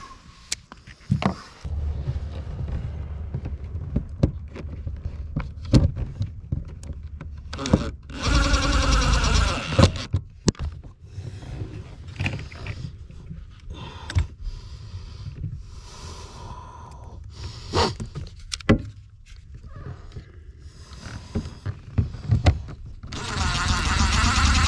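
Hands and tools working on boat wiring: scattered clicks and taps of terminals and wire being handled, over a steady low rumble. A small electric motor whirs twice for about two seconds each, about a third of the way in and near the end.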